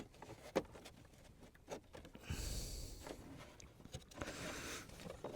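Faint handling sounds of a seatbelt retractor being fitted: a few light clicks and two soft rubbing, sliding passages of belt and plastic trim.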